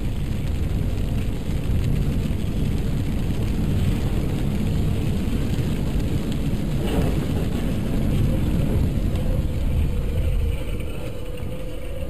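Steady road noise inside a car driving on a rain-soaked highway: a low rumble with the hiss of tyres through water and rain on the car. It eases slightly about ten seconds in.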